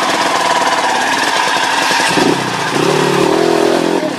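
Dirt bike engine running with a rapid, uneven firing beat, with a pitched rise and wavering in the second half as it revs.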